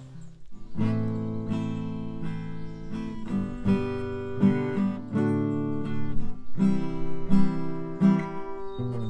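Acoustic guitar strummed in chords. It starts up about half a second in after a short pause and keeps a regular strumming rhythm.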